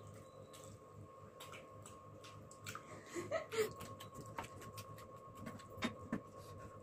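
People eating masala noodles with chicken: many small wet clicks from chewing and lip-smacking over a faint steady hum. A short voice-like noise comes about halfway through.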